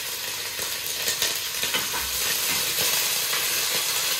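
Raw minced beef sizzling as it goes into a hot, oiled pot over high heat. The sizzle grows louder about a second in, with a few short clicks as the meat lands.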